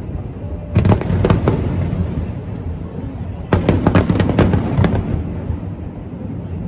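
Aerial fireworks bursting overhead: a continuous low rumble of booms, with a quick cluster of sharp cracks about a second in and a longer run of crackling bangs from about three and a half to five seconds.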